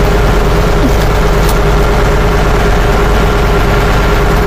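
Heavy diesel truck engine idling steadily, heard from inside the cab, with a constant whine over a dense rushing hiss of heavy rain; the engine is running to build up air-brake pressure.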